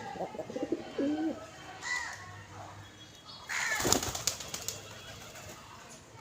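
Small birds calling, with wavering and short curved calls, then about three and a half seconds in a loud second-long flurry of wings flapping and splashing as a bird bathes.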